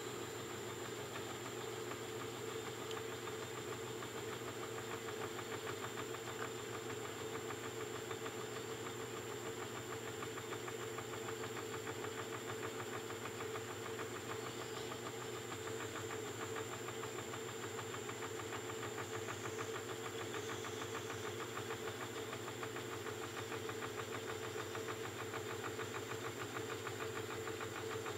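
Milling machine spindle running steadily, turning a 5/16-inch reamer as it cuts a hole through an aluminum part.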